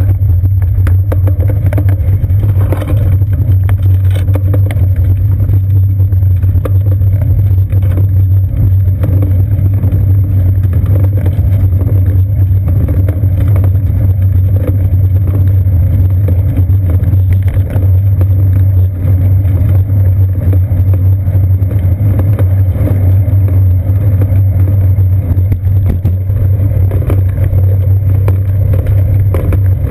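Steady, loud low rumble of a bicycle rolling along the street: road vibration and wind carried through a seat-post-mounted action camera in its waterproof housing. Small knocks from bumps are scattered through it.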